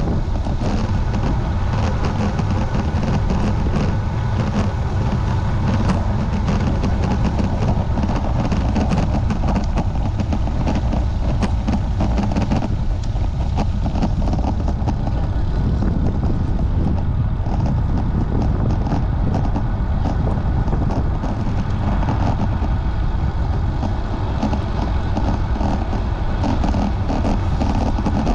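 Loud, steady wind rush buffeting the microphone of a bicycle-mounted camera on a fast downhill run.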